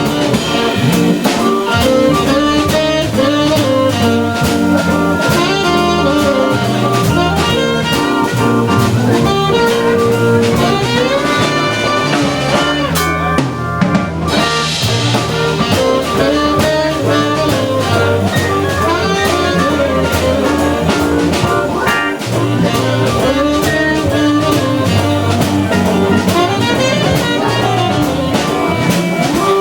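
Live jazz-blues combo playing: organ, tenor saxophone, electric guitar and drum kit.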